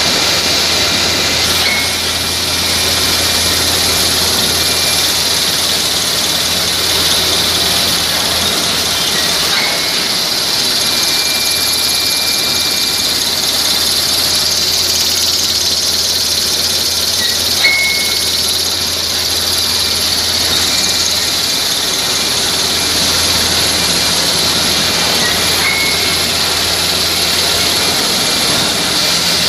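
Toilet-paper and kitchen-towel converting machinery running: a loud, steady machine noise with a strong high hiss and a brief squeak about every eight seconds.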